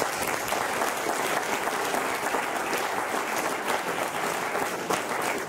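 Audience applauding, with steady clapping from many hands.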